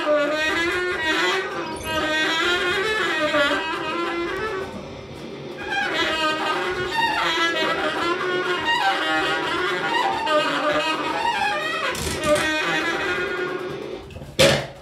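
Free-improvised music: a baritone saxophone's wavering, bending tones layered with electronic synthesizer and turntable sounds. A sharp knock near the end is the loudest moment.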